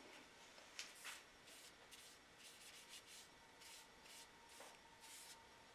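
Faint, repeated rubbing strokes of a paper towel wiping wood stain onto a knife's wooden handle scales, about two strokes a second.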